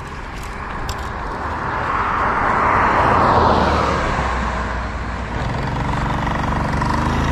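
A car passing on the road, its tyre and engine noise swelling to a peak about three seconds in, then fading. Near the end a small motorcycle engine approaches, its pitch rising steadily.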